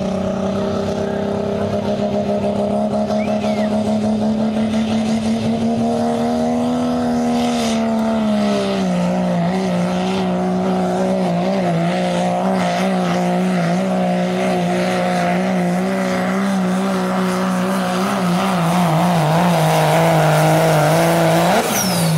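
1998 Dodge Ram pulling truck's diesel engine at full throttle, dragging the weight-transfer sled. Its steady pitch sags about eight seconds in as the sled loads it down, wavers through the pull, and jumps briefly near the end.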